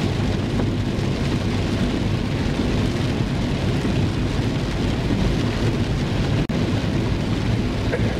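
Heavy rain drumming on a car's roof and windshield, heard from inside the moving car, over a steady low rumble of tyres on the wet road. The sound drops out for an instant about six and a half seconds in.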